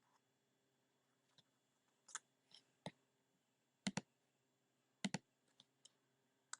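Scattered computer mouse and keyboard clicks, about nine in all and sharp and brief, with two quick double clicks in the middle.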